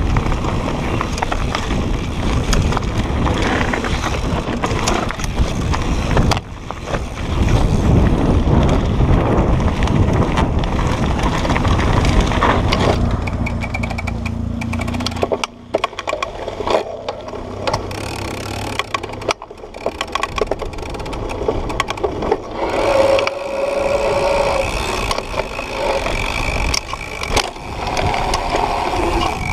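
A Propain Tyee mountain bike rolling fast over a dirt and gravel trail, heard from a camera mounted on the bike: tyres crunching over loose stones, with the bike rattling and knocking over bumps.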